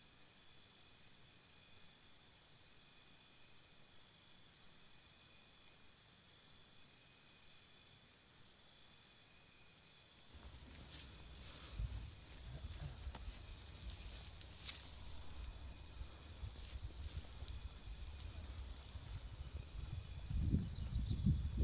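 Crickets chirping in a steady, high pulsing trill. About halfway through, a low rumble of wind on the microphone comes in, with a few louder buffets near the end.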